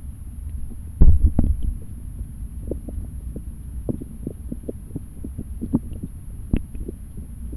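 Stream water heard from inside a submerged camera's waterproof case: a steady, muffled low rumble with irregular small knocks and ticks, and one louder thump about a second in.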